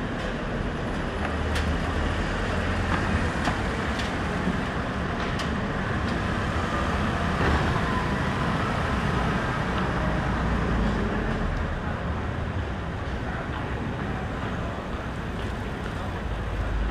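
City street traffic: a steady rush of road vehicles passing.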